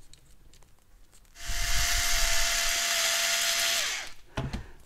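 Electric drill-driver running for about two and a half seconds as it drives a screw into a cooling fan's frame, its motor whine dropping as it stops.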